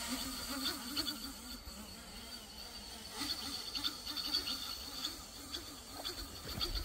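GEPRC EF10 10-inch FPV quadcopter hovering: its motors and propellers make a steady buzzing hum that wavers up and down in pitch. The quad is hovering unsteadily and vibrating heavily even without a load, which the pilots suspect may be a sticking motor bearing.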